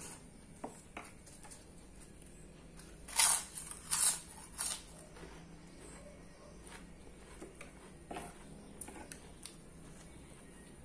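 Close-up eating: three loud crunches about three to four and a half seconds in as a kerupuk (fried cracker) is bitten and chewed, with smaller clicks and chewing sounds around them.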